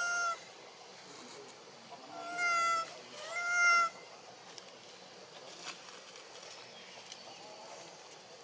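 Young long-tailed macaque giving three clear, high coo calls: one right at the start, then two more close together about two and three seconds in, the last the loudest.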